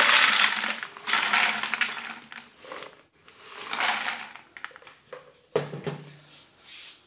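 Dry dog kibble poured from a plastic bucket into a plastic drum, rattling and clattering in a couple of pours, with a knock about five and a half seconds in.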